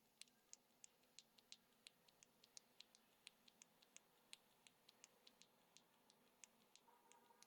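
A bare ShuangCi advanced tactile mechanical keyboard switch pressed and released over and over by finger: faint, sharp clicks at about four a second.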